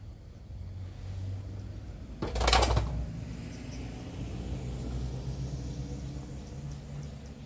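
A steady low mechanical hum, like a motor running, with a brief loud burst of rushing noise about two and a half seconds in.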